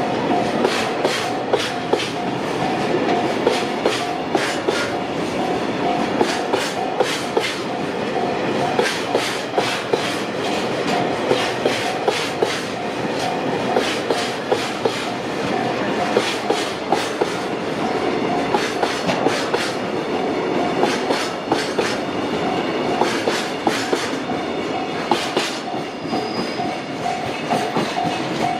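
Freight train of tank wagons rolling past, its wheels clicking steadily over the rail joints. A repeating high tone pulses alongside.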